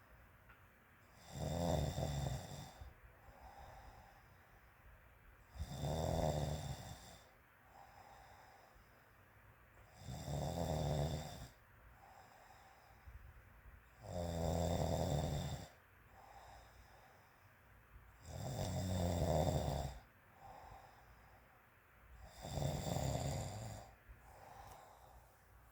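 A woman snoring in sleep: six loud snores, one about every four seconds, with quieter breaths between.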